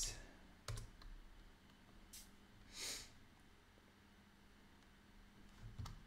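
Faint computer keyboard key presses, one clear click about a second in, and a short exhaled breath about halfway through; otherwise quiet room tone.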